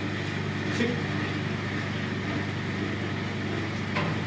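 A motor running with a steady low hum. Two brief knocks come through, about a second in and again near the end.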